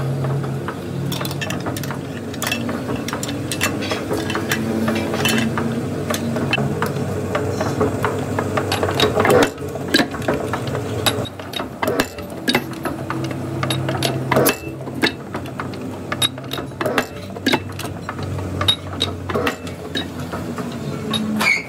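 A heavy metalworking machine running with a steady hum, under frequent sharp metallic clicks and clinks from the steel rim plate and tools being handled in it.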